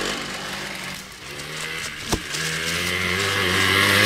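Rokon Trailblazer's small two-stroke engine running as the bike is ridden. The revs fall away about a second in and build again after a sharp click just past two seconds, getting louder toward the end.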